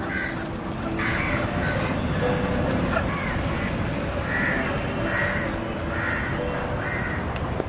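A crow cawing over and over, about one harsh caw a second.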